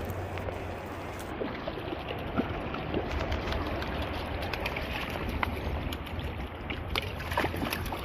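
Shallow creek riffle running steadily with a low rumble, and scattered small splashes from about two seconds in as a hooked trout thrashes at the surface while being brought to the bank.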